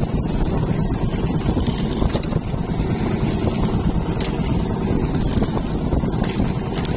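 Steady low rumble of strong wind buffeting the microphone, with water splashing and dripping and small scattered clicks as a wet nylon fishing net is hauled in over the boat's roller.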